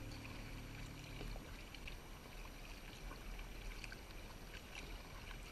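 The last chord of background music fades out about a second in. Then a kayak paddle dipping into calm creek water, with faint irregular splashes and drips from the blade.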